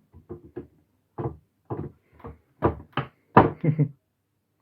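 A quick series of about ten knocks and bumps on the wooden pallet table as pieces are handled and fitted, growing louder toward the end.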